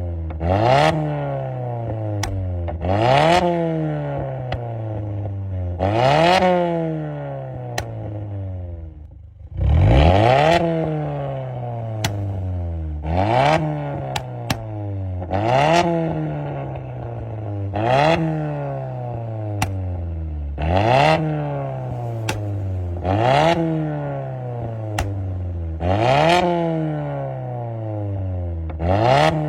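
Mazda CX-5 engine through a custom exhaust, revved again and again in short blips: the pitch jumps up sharply and sinks back over a couple of seconds, about eleven times, giving a fart-like 'pehhh' exhaust note. Partway through, the engine settles lower before a stronger rev.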